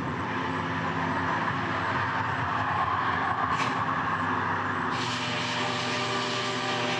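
Arc welding with the 1963 Lincoln Idealarc welder at full power: a steady, loud arc hiss and crackle over a faint hum. The sound gets brighter and harsher about five seconds in.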